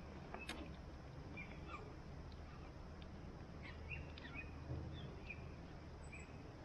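A small bird chirping, short high calls repeated every second or so, over a faint steady low background.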